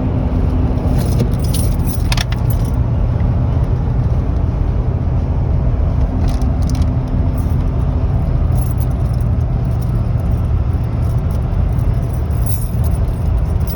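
Road and engine noise inside a moving vehicle's cabin: a steady low rumble, with light jingling rattles coming and going over it.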